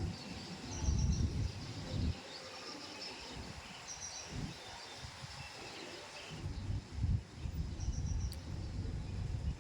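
Gusts of wind buffeting the microphone in uneven low rumbles, with birds chirping briefly a few times in the background.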